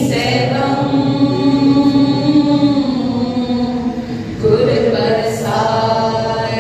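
A group of voices singing together in unison, holding long notes, with a new phrase beginning about four and a half seconds in.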